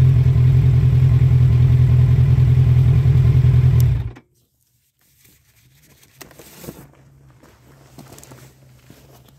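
Motorcycle engine idling steadily, then switched off and cutting out abruptly a little over four seconds in. After that, only faint small clicks and rustles.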